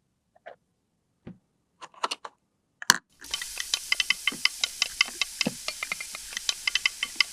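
A few light, separate clicks and taps of small plastic toy pieces being handled. From about three seconds in, a steady hiss sets in with quick, irregular ticks over it.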